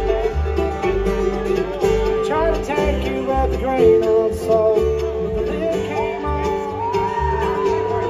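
A live bluegrass band playing: banjo, acoustic guitar and fiddle over an upright bass on a steady beat.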